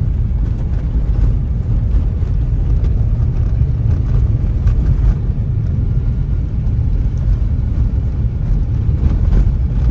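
Steady low rumble of a moving car heard from inside the cabin: engine and tyre noise on the road.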